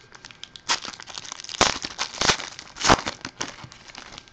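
Trading-card pack wrappers crinkling and tearing as packs are ripped open by hand, with a rapid patter of crackles and three louder rips about one and a half, two and three seconds in.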